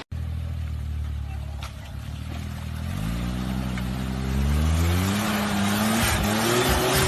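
Off-road vehicle's engine running low, then revving up about three seconds in, its pitch climbing and holding, and rising once more near the end.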